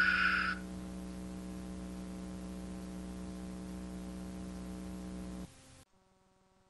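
Steady electrical hum with a faint hiss, after a ringing tone dies away in the first half second. The hum cuts off abruptly about five and a half seconds in, leaving near silence.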